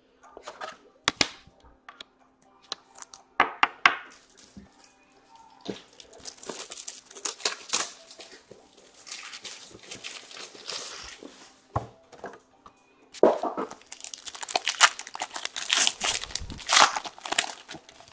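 Hockey card pack wrapper being torn open and crinkled, in long rustling stretches broken by sharp clicks and taps as the packaging and cards are handled.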